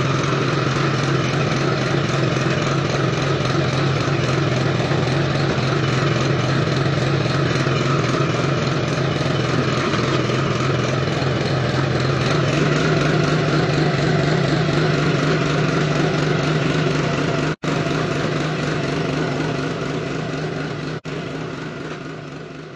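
Small walk-behind power tiller's engine running steadily under load while its ridging attachment cuts and throws up soil. It drops out twice for a moment near the end, then fades away.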